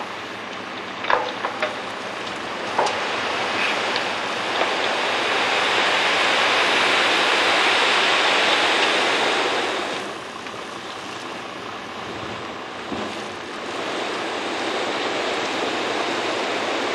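A load of earth and gravel sliding out of a steel tipper trailer body and pouring onto a pile: a steady rushing noise that swells to its loudest midway and eases off about ten seconds in. A few sharp knocks of stones sound in the first three seconds.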